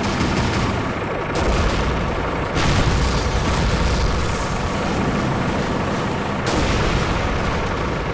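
Dense battle sound effects of gunfire and explosions running together without a break. The din swells suddenly about a second and a half in and again at around two and a half seconds.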